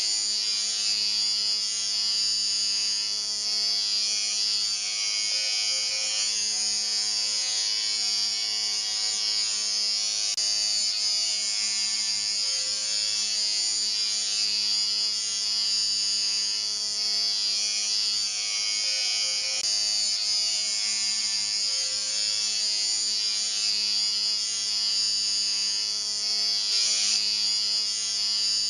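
Electric shaver running with a steady buzz, its pitch and level unchanging.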